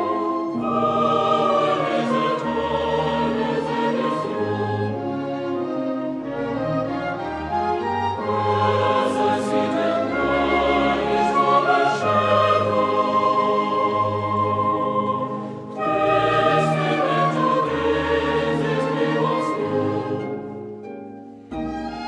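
Background music with sustained, choir-like singing in long slow phrases, fading briefly near the end before the next phrase starts.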